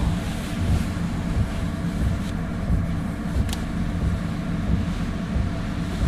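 Chinese diesel air heater running at a low setting, a steady low hum from its fan and burner. Two faint ticks come in the middle, with some light rustling of a sleeping bag near the start.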